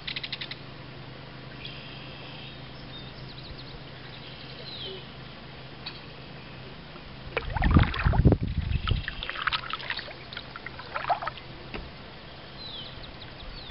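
Kayak paddle strokes splashing in the water, a cluster of them loudest a little past halfway, while small birds chirp now and then.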